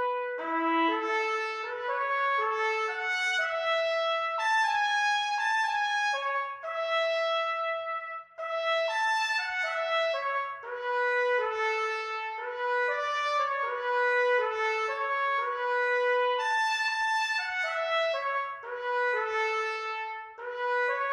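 Instrumental outro music: a melody of held notes, one after another, with no speech.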